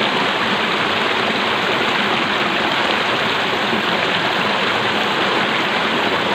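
A small stream cascading over rocks with an even, steady rush of white water.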